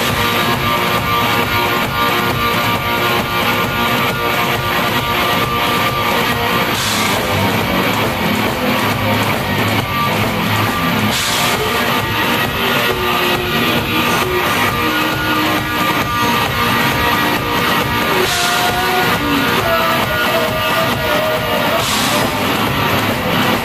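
Rock band playing live on stage: electric guitar over a drum kit, loud and continuous.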